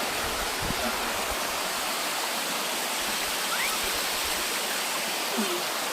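Natural waterfall: water falling from above between the hills, a steady, even rushing.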